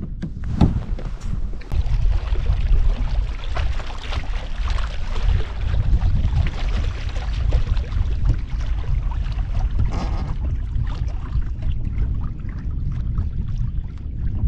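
Wind buffeting the microphone in a steady low rumble, with water lapping and slapping against a kayak hull.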